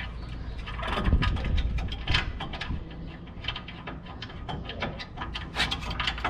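Wrench clicking and clinking at an irregular pace on the lower 18 mm brake caliper bolt as it is threaded in and tightened, with a low knock about a second in.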